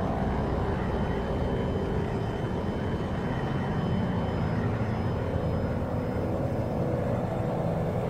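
A steady low rumbling drone with a few faint held tones above it, unchanging throughout.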